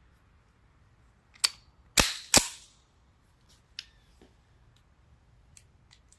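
Sharp metallic cracks from a pistol: one at about a second and a half, then the two loudest about a third of a second apart, each with a short ringing tail, followed by several lighter clicks.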